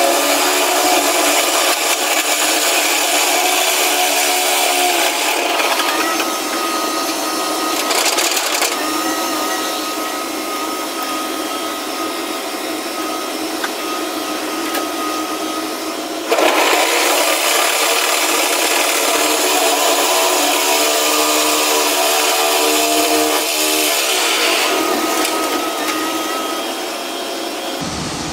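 Excavator-mounted crusher bucket grinding waste concrete railway sleepers, over the steady run of the excavator's engine and hydraulics. It gets suddenly louder about 16 seconds in and eases off near the end.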